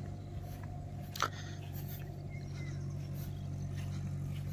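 A steady low engine drone, with one sharp click about a second in.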